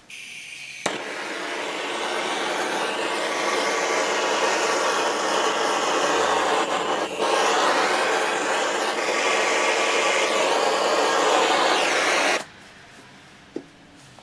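Handheld butane gas torch: gas hissing, a sharp ignition click about a second in, then the flame rushing steadily for about eleven seconds before it is shut off abruptly. The torch is being played over a wet acrylic fluid-art pour to pop bubbles and bring up cells.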